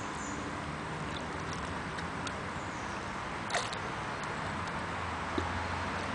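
Steady open-air background hiss with a single sharp click about three and a half seconds in and a fainter one near the end.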